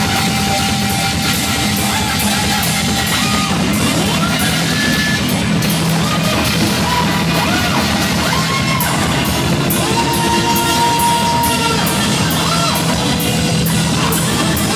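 Rock band playing live: drums with evenly spaced cymbal strikes, electric guitar and keyboards, with a wavering high melody line over them. The recording is loud and distorted, the sound clipping.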